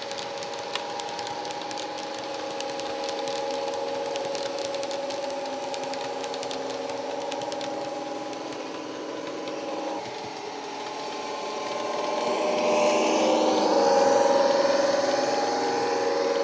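Factory-fitted DCC sound decoder in an Accurascale Deltic model locomotive playing the Napier Deltic diesel engine sound through its onboard speaker as the train runs, a steady drone with several held tones. Light rapid clicking from the wheels on the track runs through the first half, and the engine sound grows louder with a sliding higher whine about two thirds of the way in.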